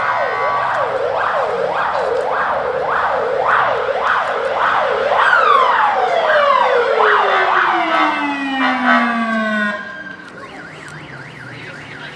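Emergency vehicle sirens in a fast rising-and-falling yelp, about one and a half sweeps a second. About five seconds in, a second siren tone slides slowly down over four seconds, as if winding down. Near the end the sirens drop away to a fainter yelp.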